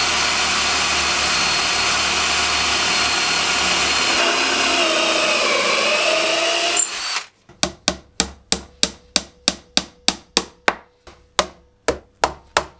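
A cordless drill bores steadily through wood for about seven seconds, its pitch dipping slightly shortly before it stops. Right after, hammer blows ring out at about three a second as wooden dowels are driven into glued holes.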